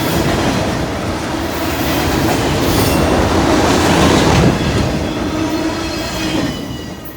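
Fast Norfolk Southern freight train going by at speed, its cars and wheels rumbling over the rails, with a diesel locomotive's steady engine drone, the distributed-power unit working hard. Drone and rumble ease off near the end.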